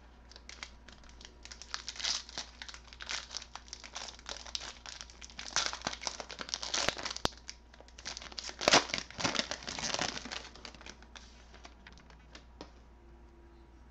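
Wrapper of a trading-card pack crinkling and tearing as it is opened by hand, in irregular bursts. The bursts are loudest about nine seconds in and die down about eleven seconds in.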